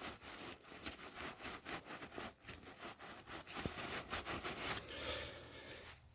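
Osprey Aether 60 backpack being flexed and handled: faint, irregular fabric rustling with small clicks and scrapes, and no creaking from the frame wire, whose ends are now sleeved in heat-shrink tubing.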